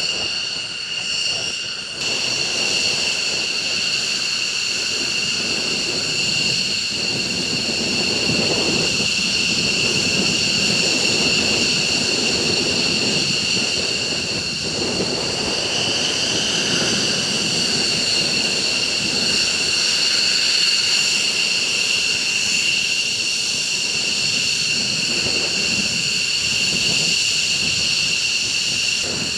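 Jet fighter engines running with a steady high-pitched whine over a rushing roar.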